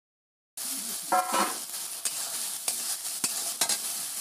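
Spice paste and chicken feet sizzling in a metal karai while a metal spatula stirs, with sharp clicks and scrapes of the spatula against the pan. The sound is cut dead for the first half second, and a short squeal comes about a second in.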